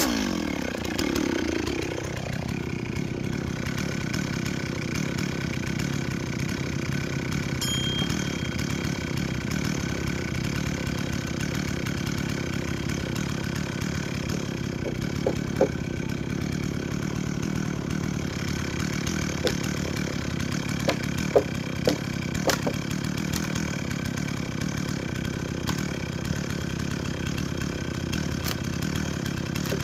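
Gas chainsaw coming off the throttle after a cut and settling into a steady idle. A few short sharp knocks sound over it about halfway through.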